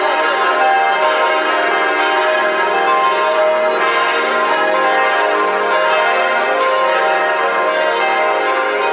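Church bells pealing: several bells of different pitches ringing together in a steady, overlapping peal without a break.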